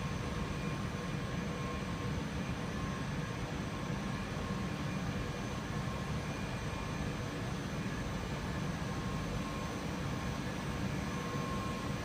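Steady hum and rush of running machinery in a factory hall, with faint steady whining tones over a deep rumble and no change in level.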